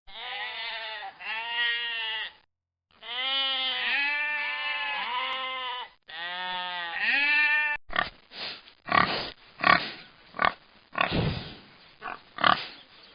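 Sheep bleating for about the first eight seconds in several long calls with a wavering pitch. Then, from about eight seconds in, pigs grunting in a quick run of short grunts.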